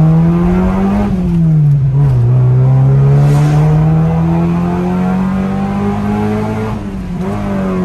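A car engine heard from inside the cabin, pulling hard: the revs climb, drop quickly about a second in, climb steadily again for several seconds, and fall once more near the end.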